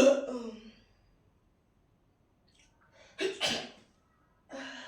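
A person sneezing: a loud sneeze right at the start, then another, two-part sneeze about three seconds in.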